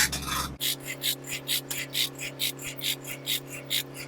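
Sawmill machinery running steadily with a regular clacking about four to five times a second; a deeper low hum drops out about half a second in.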